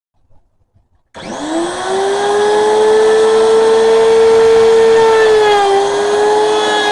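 Electric wood router switched on: its motor spins up with a quickly rising whine about a second in, then runs at full speed with a steady high whine. The pitch dips briefly near the end and recovers.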